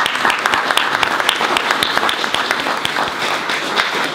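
Audience applauding: many hands clapping together in a steady stream.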